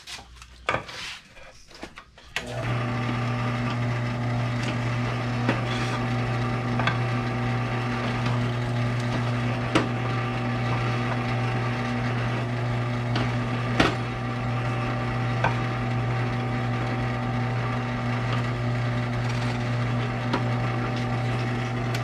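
Benchtop drill press starting up about two and a half seconds in and running with a steady hum while holes are drilled through a layered speaker adapter, with scattered sharp clicks from the bit and the workpiece. A few handling knocks come before the motor starts.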